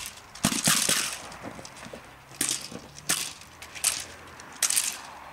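A decoy's training stick cracking in a series of sharp, irregular strikes, about six in five seconds, during a mondioring attack on a Belgian Malinois.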